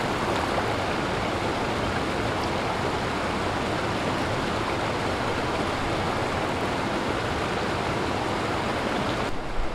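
Steady rush of flowing river water close to the microphone.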